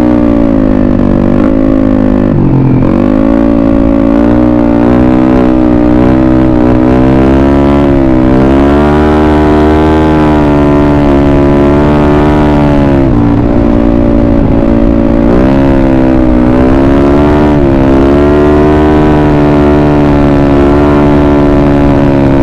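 Yamaha Mio Sporty scooter's single-cylinder four-stroke engine running while riding. Its pitch rises and falls again and again as the throttle is opened and eased, with sharp drops in revs about two and a half seconds and thirteen seconds in.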